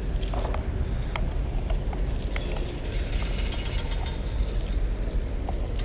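Okuma Trio spinning reel being cranked, with light mechanical clicking and rattling, over a steady low rumble.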